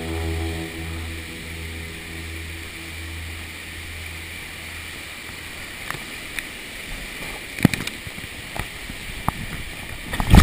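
Water rushing and splashing around a raft sliding down a tube water slide, with a low rumble in the first half and several sharp knocks and splashes in the second half as the raft bumps along.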